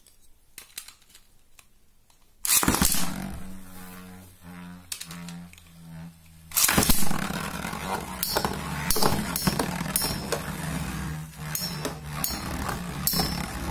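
Spiral Capricorn 90MF and Dark Wolf DF145FS metal Beyblades launched one after the other into a plastic stadium: a loud launch about two seconds in, a pulsing spinning hum, then a second launch about four seconds later. The two tops then spin together with a run of sharp clacks as they collide.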